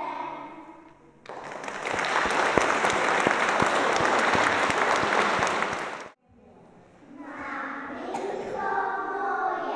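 Children's singing ends, then an audience claps for about five seconds and the applause cuts off sharply. After a short pause, children's singing starts again.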